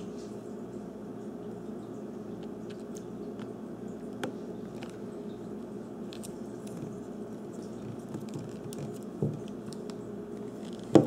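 Small plastic clicks and taps as a battery-pack plug is fitted into a cordless phone handset and the handset is handled, over a steady low hum. A sharper knock comes about nine seconds in, and a louder click right at the end.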